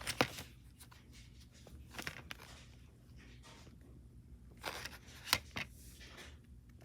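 Plastic DVD case being handled: a few sharp clicks and light rustling, the loudest click right at the start and another pair about five seconds in.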